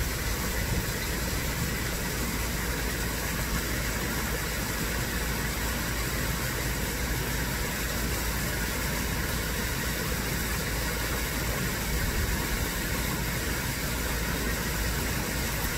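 Steady rushing of water from a small backyard pond waterfall, running over rocks into the pool, an even unbroken hiss with no pauses.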